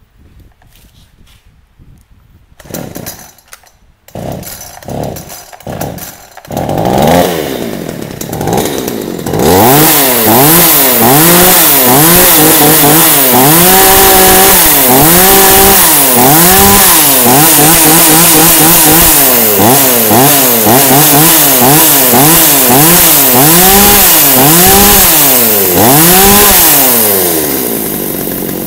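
Topsun T3612 36cc two-stroke mini top-handle chainsaw being pull-started: a few cord pulls, then the engine catches and is blipped up and down over and over, about once a second, before it settles back to idle near the end. It runs smoothly, described as "very smooth".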